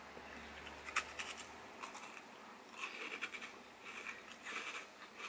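Faint wet mouth sounds of a person licking and eating a sugar-free ice popsicle. There is a small click about a second in and a few short bursts of slurping later on.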